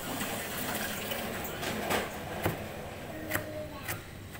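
A kitchen knife chopping on a plastic cutting board, a few sharp knocks, over a steady wash of water running in a steel kitchen sink.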